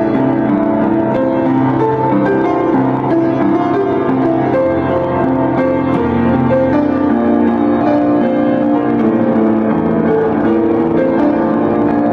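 Background music: piano playing a steady run of sustained notes.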